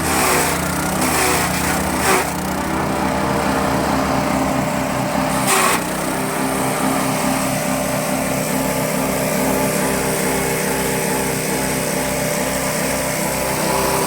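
Multifunction grass chopper machine running steadily on its small engine, with a few brief sharp noises in the first six seconds.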